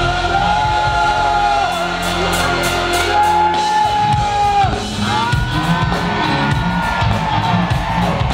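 Live R&B band playing on a concert stage, with long held sung vocal lines over bass, drum kit with cymbals, and congas.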